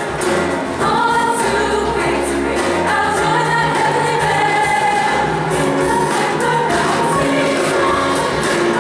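Large youth choir singing in harmony, with long held notes.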